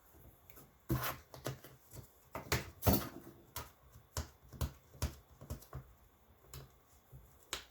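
Cardboard packaging being handled: a run of irregular crisp taps, clicks and rustles, the two loudest about a second and three seconds in.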